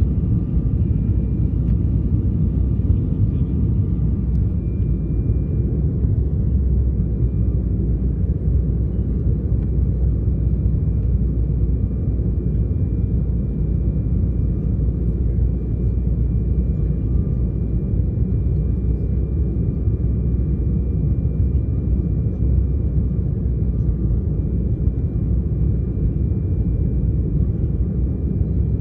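Steady low rumble of a Sukhoi Superjet 100's engines and airflow, heard from inside the passenger cabin on approach, with a faint steady high whine over it.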